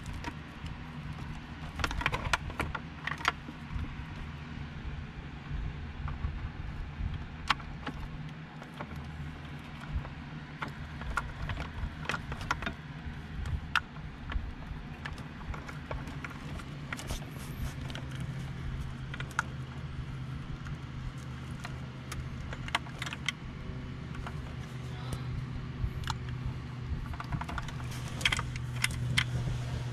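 Plastic wiring-harness connectors and loose cables clicking and rattling as they are handled and plugged into the back of a car stereo head unit, scattered sharp clicks over a steady low hum that grows a little louder past the middle.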